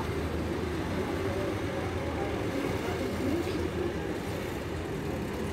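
Busy street ambience: a steady hum of vehicle engines and traffic, with voices of a crowd in the background.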